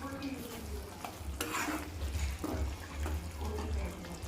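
Chicken and prawn curries frying in pans and being stirred, with irregular scraping and sizzling over a low steady hum.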